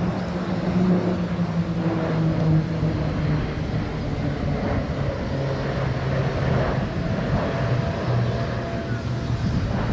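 A formation of KAI KT-1B Woongbi single-engine turboprop trainers droning as they fly past, the engine tone slowly falling in pitch.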